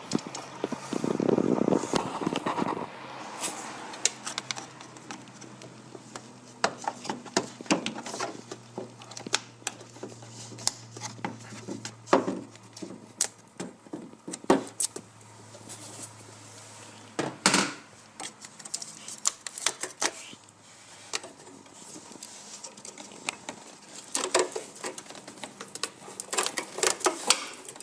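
Hand tools and metal car parts clinking and clicking at irregular intervals during work under the bonnet, with a longer scraping rustle about a second in.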